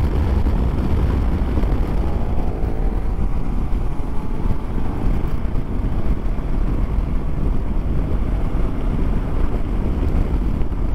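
Steady wind rush over a helmet-mounted microphone on a motorcycle at road speed, with the KTM Super Adventure S engine faintly underneath.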